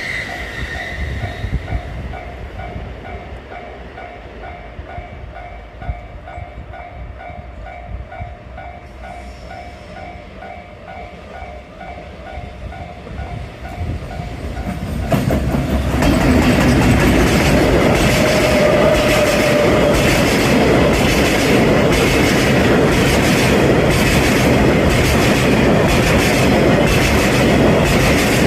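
A Japanese level-crossing warning bell ringing in a steady repeating ding over a low rumble. About 15 seconds in, a freight train led by an EF210 'Momotaro' electric locomotive and hauling tank cars reaches the crossing. It passes loudly and steadily, with a regular clickety-clack of wheels over rail joints.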